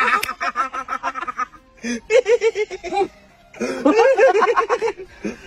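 People laughing in rapid ha-ha-ha pulses, in three spells with short pauses between.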